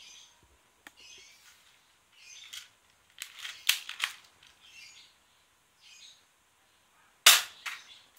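Toy Glock 17 replica pistol being handled and fired: a cluster of sharp clicks and clacks about three seconds in, then one loud sharp shot near the end. Faint bird chirps come every second or so.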